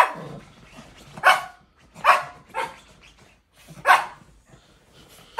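A small dog barking, about five barks spread over four seconds.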